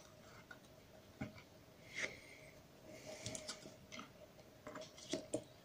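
A handful of light plastic clicks and taps, spaced irregularly about a second apart, as the parts of a gamepad's plastic shell are handled and fitted back together during reassembly.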